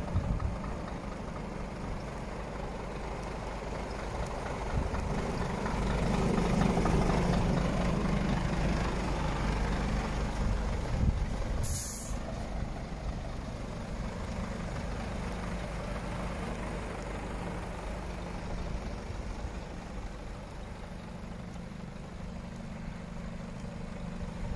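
Scania R420 truck's six-cylinder diesel idling steadily, running a little louder for a few seconds partway through. About halfway through there is a brief sharp hiss.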